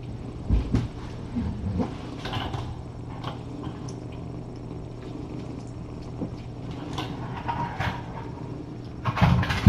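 Scattered light knocks and rustles over a steady low hum, with a louder cluster of knocks near the end.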